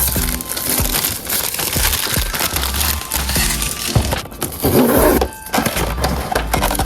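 Clear plastic wrap crinkling and tearing with many small crackles as a blind box is unwrapped and opened, over background music with a repeating low bass line.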